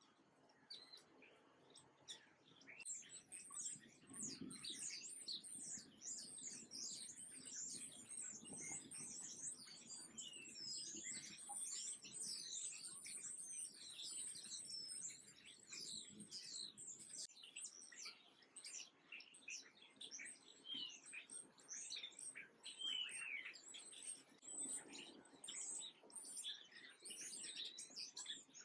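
A flock of small birds chirping, many short high chirps overlapping in a dense, continuous chatter that picks up about three seconds in.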